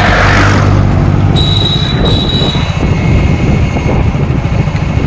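A vehicle's engine running steadily under loud rumbling road and wind noise, heard from on board while moving. A thin, high, steady squeal sounds for about a second, starting about a second and a half in.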